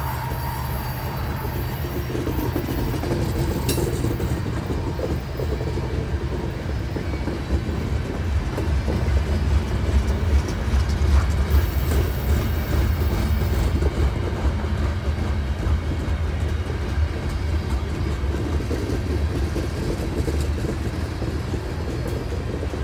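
CN freight train rolling past at track side: a steady rumble of wheels on rail, swelling a little toward the middle.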